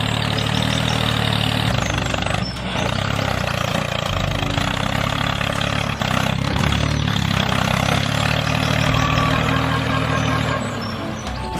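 Tractor engine running steadily at a low idle-like rumble.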